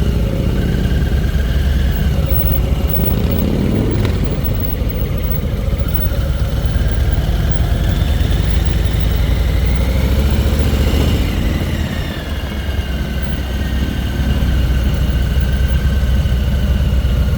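A bike's whining drive, likened to the Jetsons' flying car, rising in pitch toward the middle and falling away again as it speeds up and slows, over heavy wind noise on the microphone.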